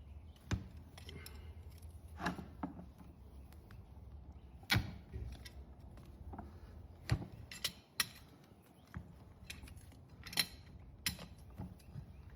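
Hoof-trimming tools working an overgrown horse hoof: irregular sharp clicks and short scrapes of metal on hoof horn, about ten in all, over a low steady hum.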